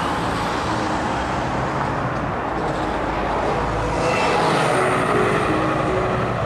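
Steady rushing noise of surf and wind on a beach, swelling about four seconds in, with a few soft music notes coming in near the end.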